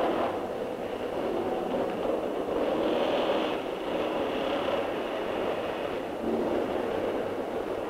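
Steady mechanical factory din, a continuous rattling noise without a clear pitch, a little louder about three seconds in and again near the end.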